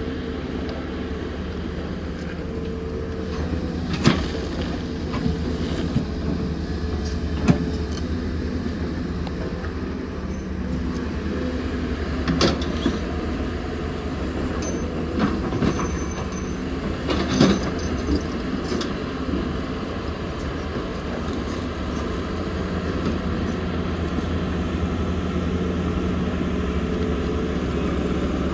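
Excavator diesel engine running steadily under hydraulic work, with a few sharp knocks and clanks from the bucket and muck scattered through it.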